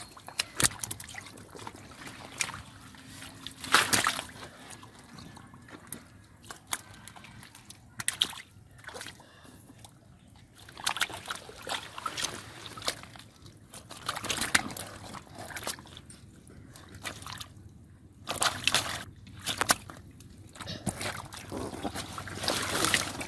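Shallow water sloshing and splashing in irregular bursts as hands and body move through it, with trickling between the louder splashes.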